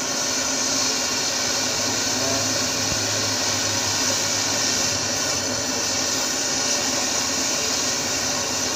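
Handheld butane canister torch burning with a steady hiss, its flame heating a copper tube joint toward red heat for soldering.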